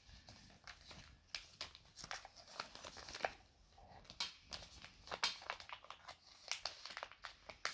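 Hands handling charging cables and their magnetic tips, with scattered light clicks and rustling.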